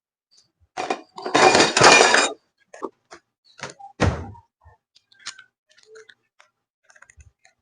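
Parts of a refrigerator stand kit being handled: a brief rattle, then a longer clatter of pieces knocking together, followed by several separate knocks and a few faint ticks.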